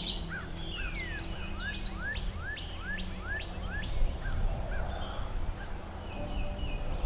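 A songbird singing a rapid series of short, rising whistled notes, about three a second, for the first few seconds, with one longer falling whistle near the start. A steady low rumble of wind or outdoor ambience lies underneath.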